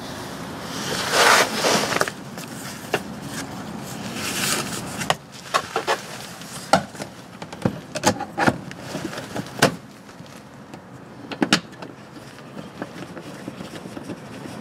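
Plastic underbody cover of a 2020 Toyota RAV4 being handled and fitted back into place: a couple of scraping swishes, then a string of irregular sharp clicks and knocks as it is pushed up and fastened.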